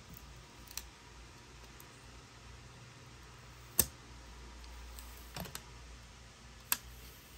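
A handful of short, sharp clicks and taps from fingers handling a screen protector and peeling its backing film. The loudest comes about four seconds in, and two more follow close together about a second and a half later.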